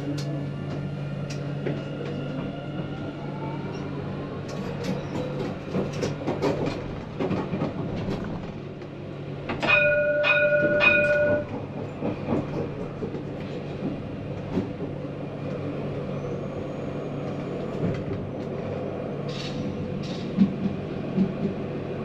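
Tram running with a steady electrical hum and light clicks from the wheels and rails, its motor whine rising in pitch a few seconds in as it gathers speed. About ten seconds in, a loud warning horn sounds for about a second and a half.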